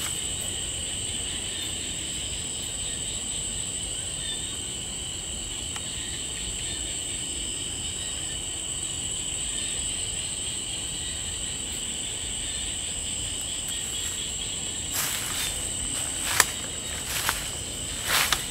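Night insects keep up a steady, high-pitched chorus at two pitches. Near the end come several crunches and rustles of footsteps pushing through brush.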